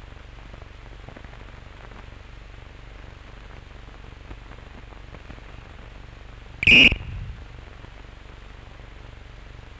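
One short, shrill blast of a referee's pea whistle, blown by the umpire to stop the penalty bully so it is taken again. It comes about two-thirds of the way in, over the steady low hum and hiss of an old film soundtrack.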